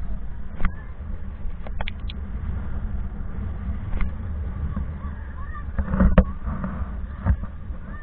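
Shoreline ambience on an action camera: a steady low rumble of wind and water on the microphone, with faint distant voices of people in the water a little after halfway, and a few sharp clicks.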